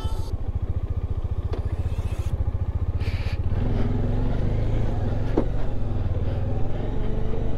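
Motorcycle engine running as the bike rides down a rough gravel track. About halfway through it gets louder, with a pitch that rises near the end. There is one short sharp click a little after five seconds.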